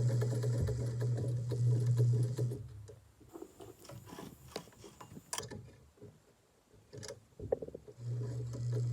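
Vintage Brother 1241 sewing machine sewing a run of stitches, its motor humming steadily; it stops about two and a half seconds in. After a few seconds of scattered clicks and knocks it starts sewing again near the end.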